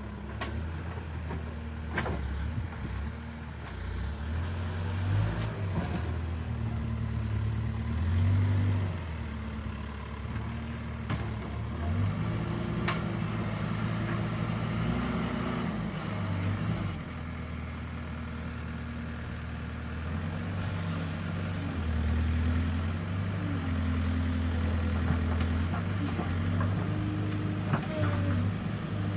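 Diesel engine of earth-moving machinery at work, its revs stepping up and down repeatedly with the hydraulic load, with a few sharp knocks scattered through.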